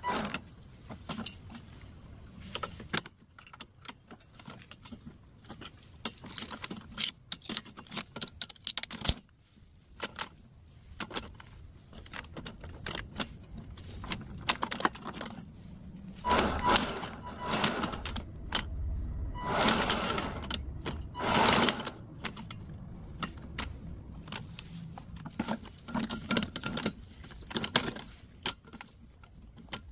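Irregular clicking and clinking of small metal parts and hand tools, with a few louder bursts of rushing noise around the middle.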